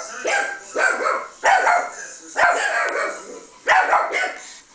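Chihuahua barking, about six sharp, high barks spaced unevenly: a mix of the dog's barks recorded earlier and played back through computer speakers, and the chihuahua herself barking back at them.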